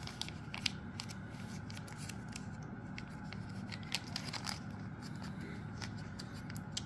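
A small zip-top plastic bag of dice being handled: scattered light crinkles and clicks of the plastic and the dice shifting inside it.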